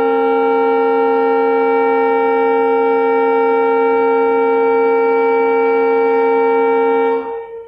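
Diesel locomotive's air horn blowing one long, loud blast, several steady tones sounding together, cutting off about seven seconds in.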